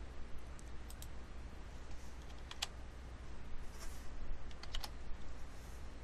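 Computer keyboard and mouse clicks: a few sharp, spaced-out clicks with a quick run of three about three quarters of the way through, over a faint steady low hum.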